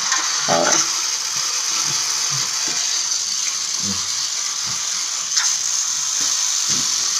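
Clothes and a cardboard box being handled: soft rustling and light knocks of cardboard over a steady background hiss, with a brief voice about half a second in.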